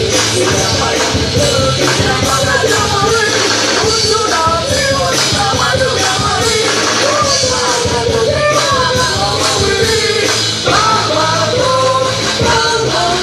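Loud rock music with a steady beat and a voice singing over it.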